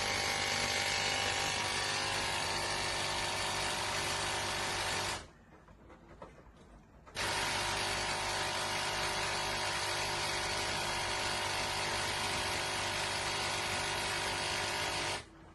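Steady mechanical whirring and buzzing of a running motor. It cuts off abruptly about five seconds in, starts again two seconds later, and stops near the end.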